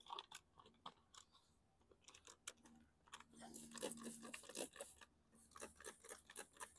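Faint, irregular crackling and light scraping, growing busier about three seconds in, as oven cleaner is worked onto a push mower's deck.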